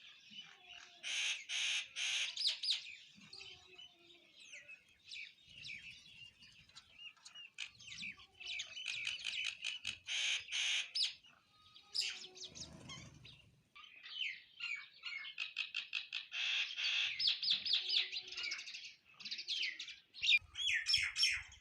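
Sparrows chirping, several birds at once in quick runs of short chirps, with louder clusters about a second in, near the middle and toward the end. A brief low noise about halfway through.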